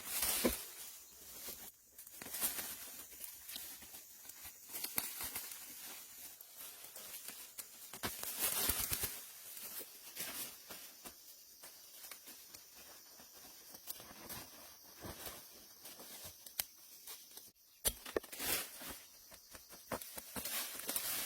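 Irregular rustling and crinkling with scattered light knocks and clicks, and a few louder scraping swells.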